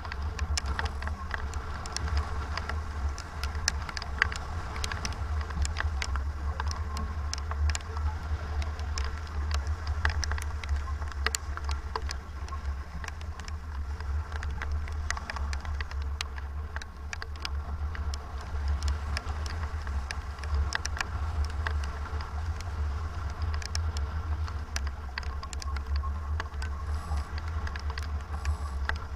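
Strong wind buffeting the microphone aboard a sailboat racing in about 25 knots, a steady low rumble, with many sharp ticks of water drops striking it.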